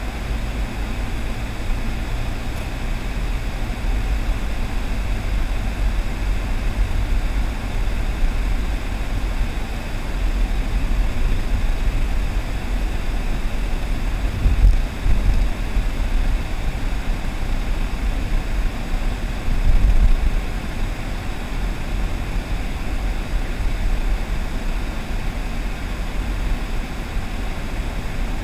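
Steady low rumble of a car driving, heard from inside the cabin: road and tyre noise with the engine underneath. Two brief louder thumps come about halfway through and about two-thirds of the way in.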